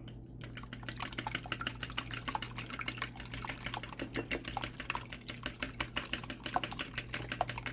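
Raw eggs being beaten by hand in a bowl: the utensil clicks rapidly against the bowl's side, many strokes a second, starting about half a second in.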